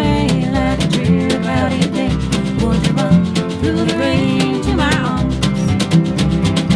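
Acoustic americana band playing an instrumental passage: steady acoustic guitar strumming under a sliding, wavering melody line.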